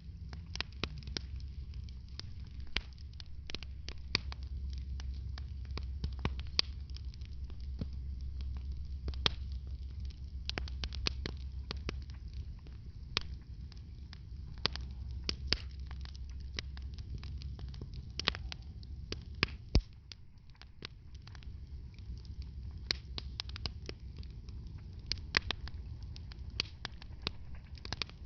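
Wood fire in a fireplace crackling, with irregular sharp pops and snaps over a steady low rumble. The rumble eases a little about two-thirds of the way through.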